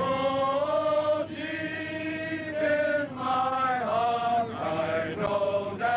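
A choir singing slow, long-held notes, several voices together, each note lasting about a second and gliding into the next.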